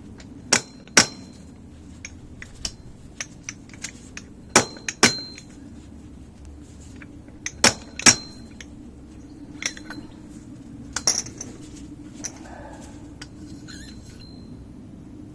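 Fork seal driver knocked down a motorcycle fork tube: sharp metal-on-metal clinks, mostly in pairs about half a second apart, some with a brief ring, driving the fork seal down to the clip groove.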